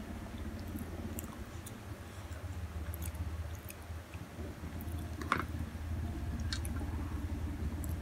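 Close-miked chewing of spicy instant noodles: wet mouth sounds and small scattered clicks over a low steady hum, with one sharper click a little past the middle.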